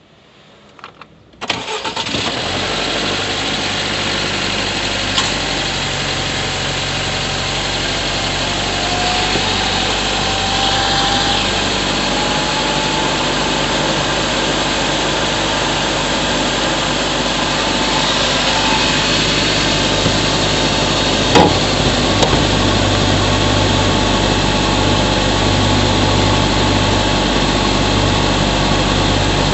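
Subaru Levorg 1.6GT-S turbocharged flat-four engine cranking and catching about a second and a half in, then settling into a steady idle, heard from inside the engine bay near the intake. A faint rising whine comes through in the middle, and there is a single sharp click near the end.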